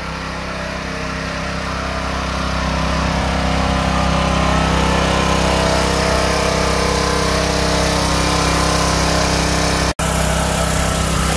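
Small gasoline engine of a two-way hydraulic log splitter running steadily, growing louder over the first few seconds.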